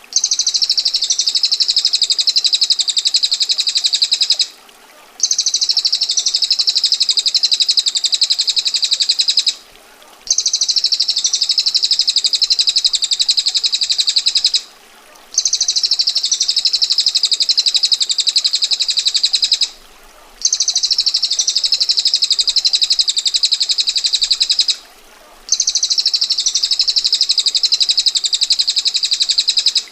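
Small songbird giving a rapid, dense, high-pitched trill in six evenly repeated bouts of about four and a half seconds, each separated by a short pause: a looped recording of a bird's rattling trill used for song training.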